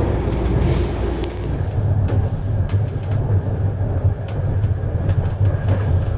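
Passenger train coach heard from inside while running along the track: a steady low rumble, with scattered sharp clicks and rattles from about a second and a half in.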